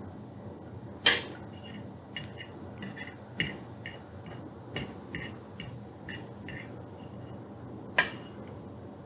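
Cutlery clinking against a plate while eating: two sharp clinks, one about a second in and one near the end, with a run of lighter clicks and taps in between.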